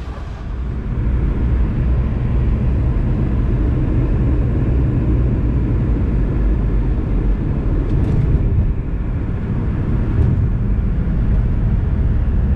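Jet airliner cabin noise as the plane speeds along the runway, heard from a window seat: a loud, steady low rumble of engines and wheels that swells over the first second or so and then holds.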